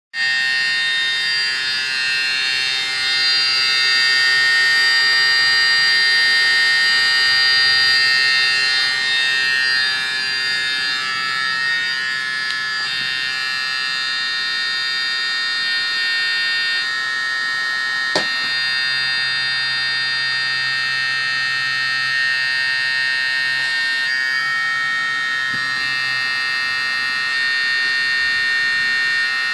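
Hydraulic pump of a scratch-built RC excavator, driven by a small electric motor, running with a steady high-pitched whine. Its tone shifts a few times as the hydraulic cylinders move the boom and arm. A single sharp click comes a little past halfway.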